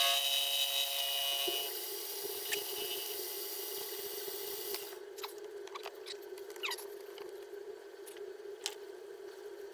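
Milling machine running after the end mill's cutting whine on the caliper dies away in the first second or two. The motor keeps a steady low hum, and a hiss stops about five seconds in. Light scattered clicks and taps follow.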